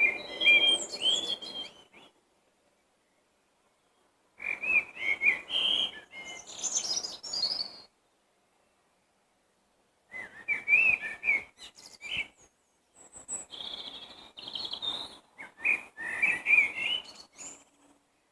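A songbird singing in separate phrases, each a few seconds long with pauses of about two seconds between them; each phrase starts with lower whistled notes and some end in a higher twitter.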